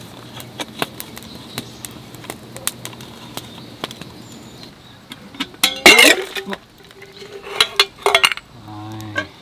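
Small clicks as the plastic and metal parts of a Cafflano Kompresso hand espresso maker are handled and fitted together, then a loud clatter of metal camping gear about six seconds in and a few more clinks near the end.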